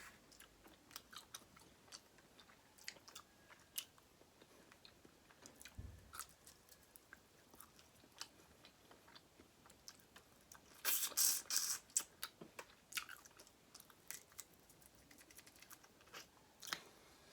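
Close-miked mukbang eating sounds from seafood boil: soft chewing with wet mouth clicks, and a louder burst of crackling about eleven seconds in.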